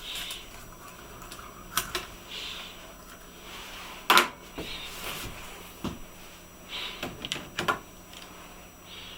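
Hard plastic clicks and knocks, with light rustling, as a laptop's keyboard is lifted off and its case handled during disassembly; the loudest knock comes about four seconds in.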